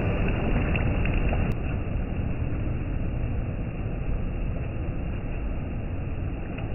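Steady rushing noise of sea surf on a beach, heaviest in the low rumble, with no distinct events.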